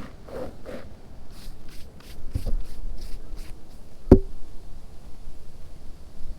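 A run of short, soft scuffs, about three a second, with two sharp knocks, the louder one about four seconds in.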